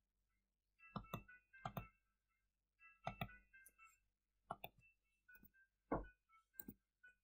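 Computer mouse clicking over near silence: about a dozen sharp clicks and knocks, several in quick pairs, with faint steady high tones coming and going between them.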